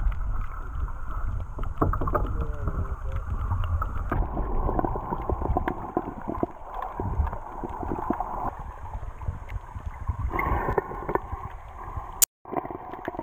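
Muffled underwater sloshing and gurgling from a camera held below the surface, with scattered small clicks and knocks. A sharp click and a brief dropout come near the end.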